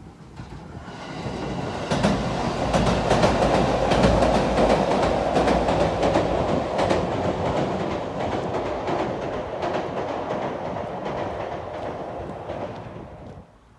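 A train passing close by: the rumble of its cars with the wheels clacking over rail joints. It builds up over the first couple of seconds and cuts off abruptly near the end.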